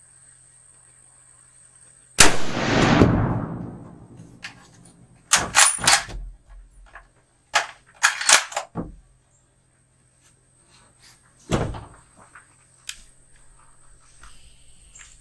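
.300 Winchester Magnum rifle fired once, about two seconds in: a loud crack with a rolling echo that dies away over about two seconds. Several shorter sharp clacks and knocks follow over the next ten seconds.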